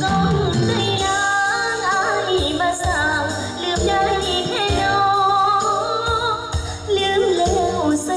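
A woman sings live into a microphone through a PA, over electronic keyboard backing music with a steady beat. Her voice comes in about a second in, after a short keyboard lead-in.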